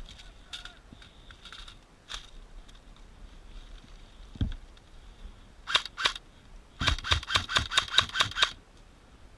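Airsoft gun firing: two quick single shots, then a rapid burst of about a dozen shots at roughly seven a second. A dull thump comes a little before the shots.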